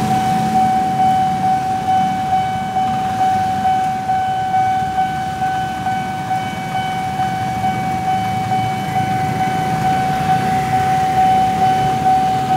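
Railway level-crossing warning alarm sounding a steady high electronic tone that pulses rhythmically, over the low running of motorcycle engines waiting at and passing the crossing. The alarm signals that the barriers are down and a train is approaching.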